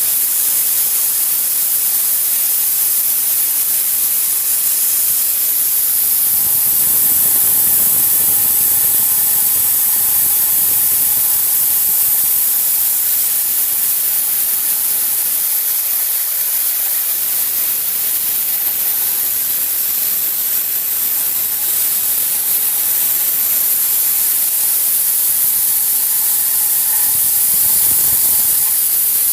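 Steady, loud hiss of a compressed-air jet from a DIMET cold-spray gun, blowing metal powder onto the cracks in a truck's cylinder block. A faint thin whistle rides on the hiss at times.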